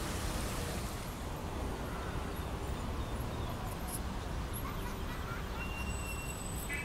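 Steady outdoor background noise with a low wind rumble on the microphone, and a couple of faint high bird chirps near the end.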